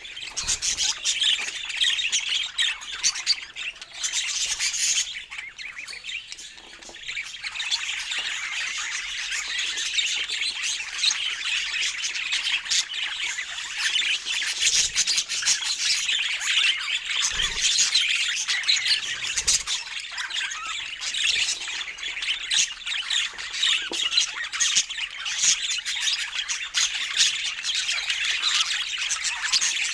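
Budgerigars chattering and squawking continuously, a dense mix of warbles, chirps and harsh calls, with a few soft low thuds about halfway through.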